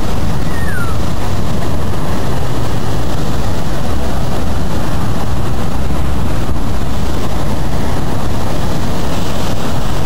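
Storm waves breaking against a sea wall and surging up the beach: a loud, unbroken surf roar, heavy in the low end.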